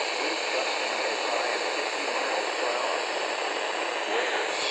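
Steady radio static: the even hiss of a weak broadcast signal on the receiver.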